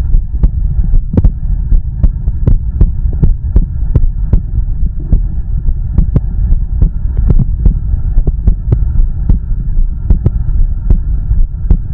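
Heartbeat picked up close on the body: a quick, even run of dull thumps, about three a second, over a loud, steady low rumble and hum.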